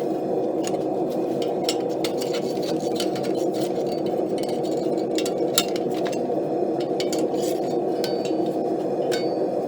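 A forge runs with a steady roar, and light, irregular metallic clinks and taps sound over it as a steel scroll is worked by hand.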